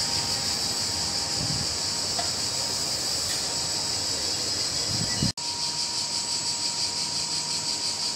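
Steady, finely pulsing chirring of cicadas over a low background rumble. It breaks off for an instant a little past halfway, then goes on as before.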